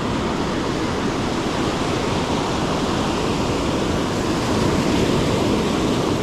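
Ocean surf breaking and washing up a sandy beach, a steady rushing noise that grows a little louder past the middle, with wind buffeting the microphone.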